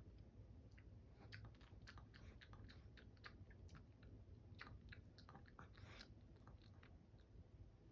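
Near silence: room tone with faint, irregular small clicks and crackles.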